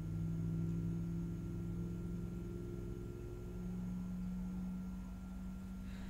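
Soft ambient background music of sustained low drone tones that shift to a new pitch about three and a half seconds in.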